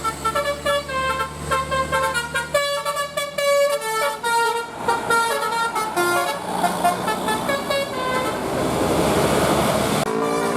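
Bus telolet 'basuri' musical air horn playing a fast tune of short, changing notes. Near the end the tune gives way to a swelling rush of noise before the horn tones come back.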